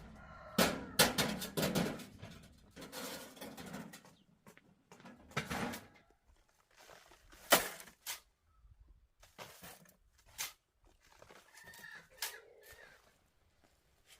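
Chickens clucking, with a scatter of short sharp knocks; the loudest knock comes about halfway through.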